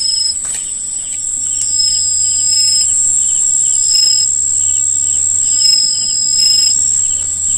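Night insect chorus: a steady, high-pitched cricket trill, with shorter high calls repeating every second or two and a few faint clicks.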